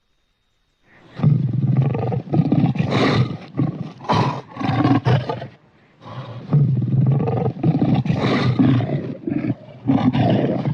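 Lion roar sound effect: after a second of silence, a long run of pulsing roars, a short break about six seconds in, then a second run of roars.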